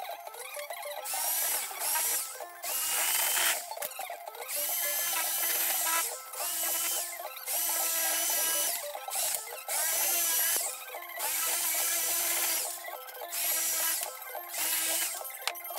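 Handheld electric sheet-metal shear cutting through sheet steel in about nine bursts, each from under a second to about two seconds long, with a high whine that rises as each burst starts and stops between cuts.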